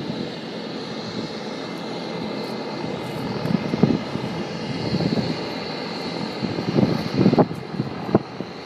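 Agusta A109 helicopter running, its turbine engines giving a steady high whine over broad rotor noise, with uneven low buffeting throughout. The whine drops away about seven and a half seconds in.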